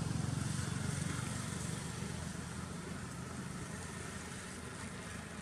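An engine running with a steady low drone, loudest about a second in and slowly fading away.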